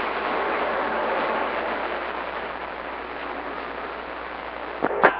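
Radio receiver static: a steady hiss of band noise from a CB/11-metre radio between transmissions, easing a little after about two seconds. Near the end come sharp clicks as a station keys up.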